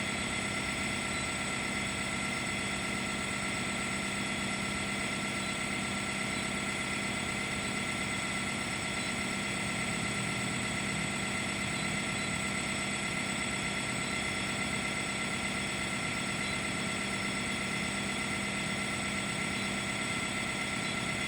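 Sawmill's power unit running steadily: a constant machine drone with a few steady tones, no change in speed or load.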